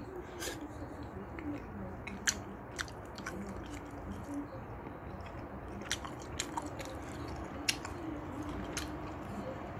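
Eating noises close to the microphone: a handful of sparse, sharp little clicks and wet smacks from chopsticks and chewing, over faint steady background noise.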